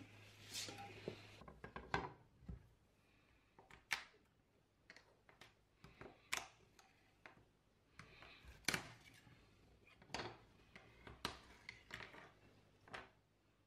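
Sporadic faint clicks, taps and short scrapes of a metal scraper and printed PLA parts against a removable 3D-printer bed plate as the parts and stringing are pried off.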